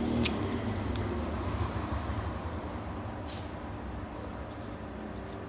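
Low background rumble of road traffic, slowly fading, with two faint clicks.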